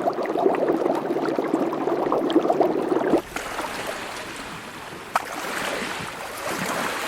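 Water sounds: a dense bubbling, gurgling noise that changes abruptly about three seconds in to a quieter, broader rushing hiss with a few sharp clicks.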